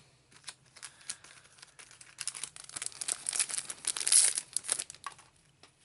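Foil booster pack wrapper crinkling and tearing as a trading card pack is opened by hand, a dense run of crackles that builds from about two seconds in and stops near the end.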